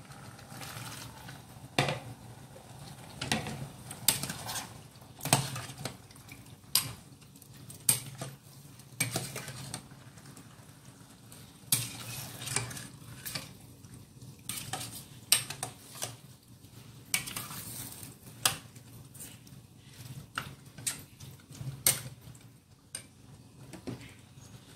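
A ladle stirring bamboo shoots in a stainless steel saucepan, knocking and scraping against the pot in irregular clinks every second or so. Plain water is poured into the pot at the very start.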